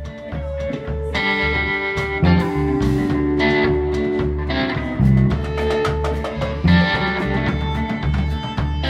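Live band playing an instrumental passage: two electric guitars, one a Stratocaster-style guitar, over a pulsing bass guitar line and a drum kit.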